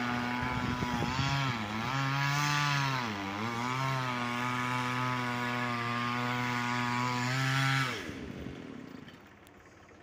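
Chainsaw running at high revs through a cut, its pitch dipping twice under load early on. About eight seconds in the throttle is let off and the engine note falls away.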